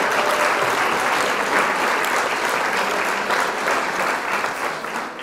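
Applause, many hands clapping at once in a dense, even patter that fades out near the end.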